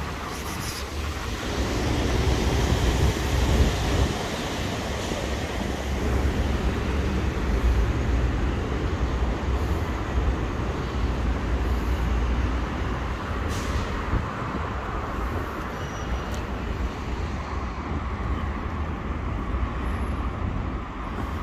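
Steady outdoor street background: a low rumble with an even hiss over it, typical of traffic noise.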